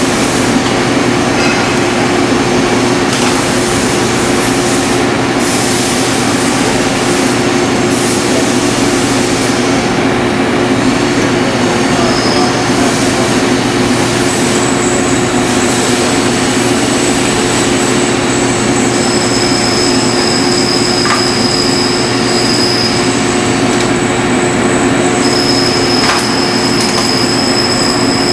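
Metal lathe running, a loud steady machine noise with a hum. Thin high-pitched squealing tones come and go in the second half.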